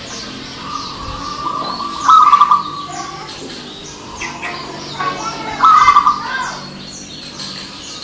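Zebra dove (perkutut) cooing in rapid pulsed coo phrases, loudest about two and five and a half seconds in. Faint high chirps of small birds sound around it.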